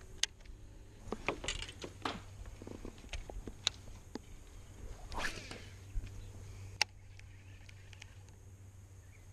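Fishing rod and baitcasting reel being handled and worked: scattered rustles and clicks, with three sharp clicks spread through, over a steady low hum that quiets after about 7 seconds.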